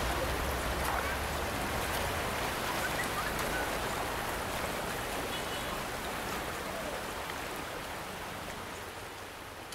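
Muddy river swollen by heavy rains rushing past its bank: a steady wash of flowing water that slowly fades out near the end.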